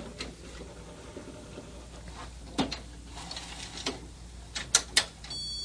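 Scattered sharp plastic clicks and knocks as the HP DesignJet T120 printer is opened and handled, the loudest two close together about five seconds in. Right after them comes a short, high electronic beep.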